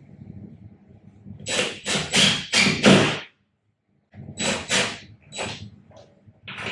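Cordless drill run in short pulses, driving self-drilling drywall anchors into the wall: about eight brief bursts in two groups, with a sudden break between them.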